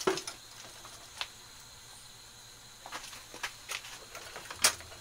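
Scattered light clicks and knocks from hands working on a snowblower's handlebar controls and cables, with a few small ticks about three seconds in and one sharper knock near the end.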